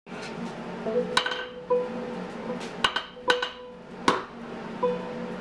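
Hot steel and hammer striking a blacksmith's anvil: four sharp, ringing metallic clinks at irregular spacing, over quiet background music.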